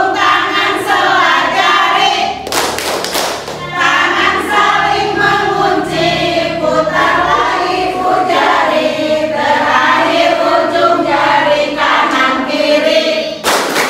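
A group of voices singing together, with a brief noisy burst about three seconds in and again near the end.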